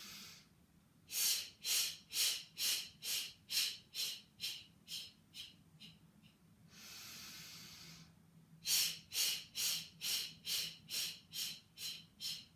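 A woman doing the yogic cleansing breath twice. Each round starts with a long, noisy inhale, followed by a series of sharp exhaled puffs driven by jerks of the diaphragm, about three a second, growing fainter as the lungs empty.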